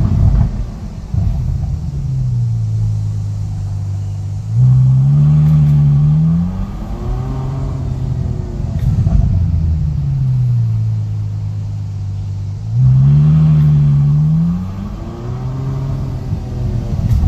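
Ferrari engine running, its revs rising and falling twice, about eight seconds apart, with the clicking noise that the owner is recording.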